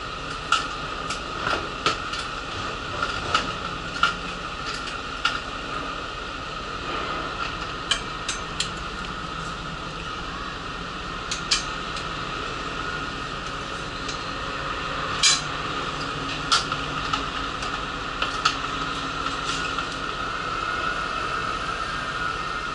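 Inside a standing city bus: a steady mechanical hum from the bus, with scattered sharp metallic clicks and clinks, the loudest about fifteen seconds in.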